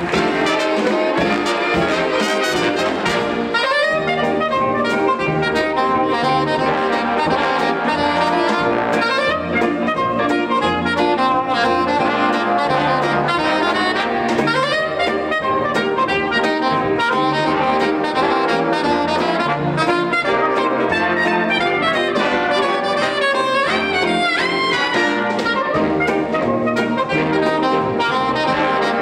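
Big band with saxophones, trumpets and trombones playing behind a solo clarinet, which plays fast runs of notes that sweep up and down over the band.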